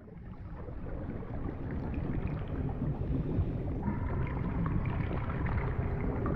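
Underwater ocean ambience fading in: a steady low rushing, gurgling wash of water, with faint drawn-out tones joining about four seconds in.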